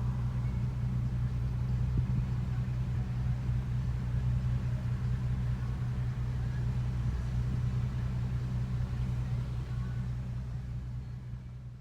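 Volkswagen Golf R32's 3.2-litre VR6 engine running at steady revs, a low even rumble with no revving. It fades out near the end.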